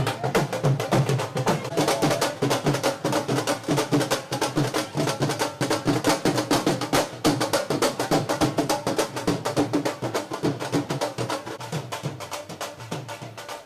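Dhol drums beaten in a fast, steady rhythm, a little quieter near the end.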